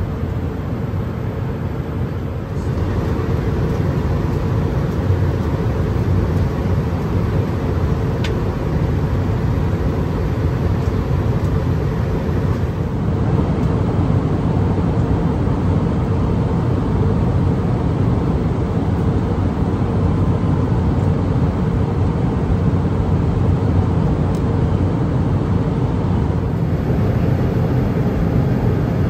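Steady cabin noise of an Airbus A320-200 in cruise, heard inside the cabin: a constant low roar of engines and airflow with a faint steady hum. The level steps up slightly a few times.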